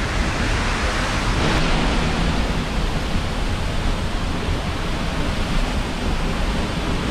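Waterfall heard from close behind its falling curtain of water: a steady rushing of water.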